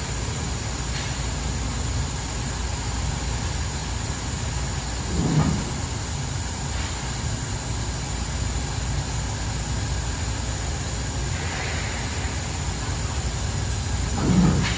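Bystronic Bystar 4020 CNC laser cutter running while cutting metal plate: a steady machine rumble and hiss. Two brief louder low swells come about five seconds in and again near the end.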